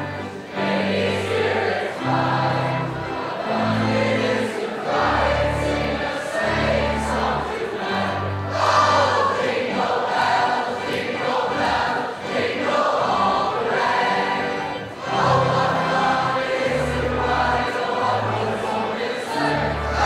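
A choir singing a Christmas sing-along song, accompanied by a string orchestra, with a bass line stepping from note to note about once a second.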